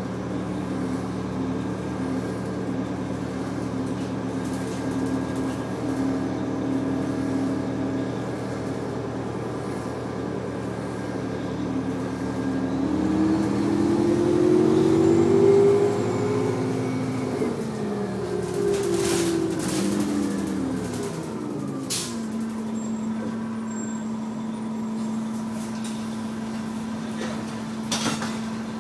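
Inside a 1996 New Flyer D40LF transit bus, its Detroit Diesel Series 50 four-cylinder diesel runs steadily under way. The engine note then rises and winds down as the bus slows to a stop, with short hisses of air from the brakes. It settles into a steady idle.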